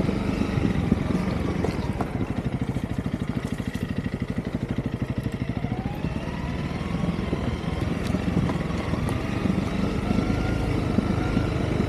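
Honda CRF300L's single-cylinder four-stroke engine running on the move. For a few seconds near the middle it settles into a slow, even pulsing at low revs, then the revs rise again.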